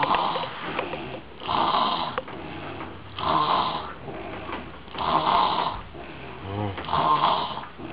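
Snoring: a loud, noisy snore about every one and a half to two seconds, with quieter rumbling between them.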